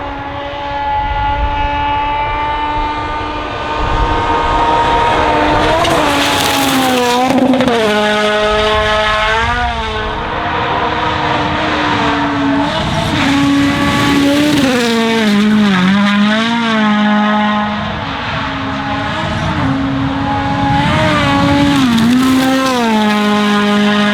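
Toyota Yaris WRC rally car's 1.6-litre turbocharged four-cylinder engine driven hard on a test run: revs climb slowly at first, then from about five seconds in they repeatedly drop and climb again with gearshifts and lifts off the throttle.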